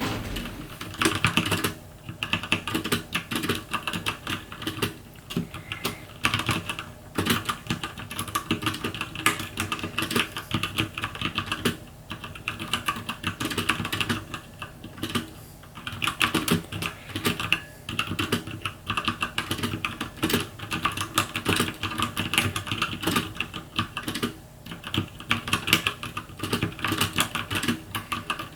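Typing on a Velocifire TKL02WS tenkeyless mechanical keyboard with brown-clone switches: quick runs of keystrokes broken by short pauses. Each keystroke ends in a slight ringing, which the owner puts down to the board's metal base.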